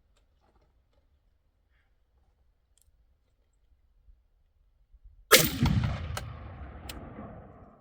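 A single AR-style rifle shot about five seconds in, its report echoing and dying away over about two and a half seconds, with a couple of faint sharp ticks as it fades.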